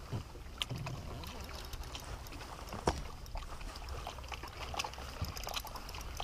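Water lapping against a bass boat's hull over a steady low rumble, with scattered small clicks and a sharp knock about three seconds in, from rod and reel handling while a spotted bass is reeled in on a spinning rod.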